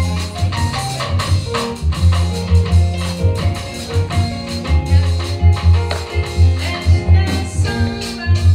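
Live band music: an upright double bass playing changing bass notes under a drum kit's steady beat, with a pitched melody line above them.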